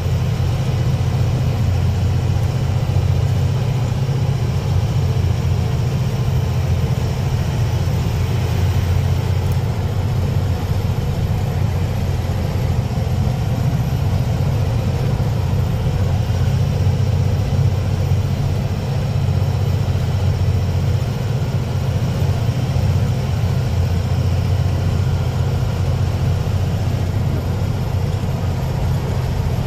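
Truck engine running steadily while under way, a constant low drone mixed with road noise, heard from inside the cab.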